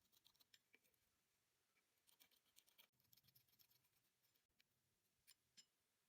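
Near silence with faint, light clicks and scratches of small tools working on a quartz watch movement, and two sharper ticks near the end.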